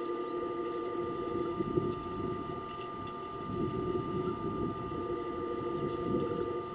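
A steady electrical hum of several even tones under a fluctuating low rustle and rumble. A few short high bird chirps come about halfway through.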